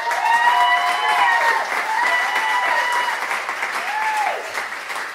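An audience clapping and cheering at the end of a song. The clapping starts suddenly, and high whooping calls rise and fall several times over it. It eases off a little near the end.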